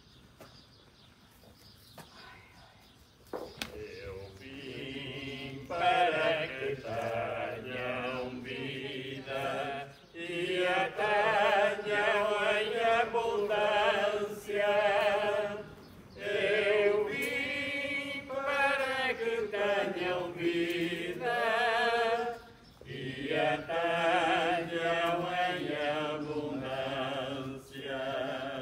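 Hymn singing during communion, slow sustained notes with vibrato in phrases, starting about three seconds in after a near-quiet moment.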